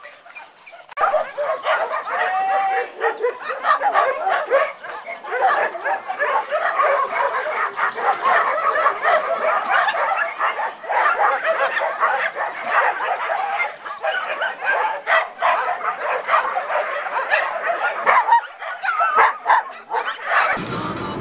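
A large group of kennel dogs barking and yelping all at once, a dense, continuous chorus of many overlapping voices. It starts about a second in and cuts off near the end.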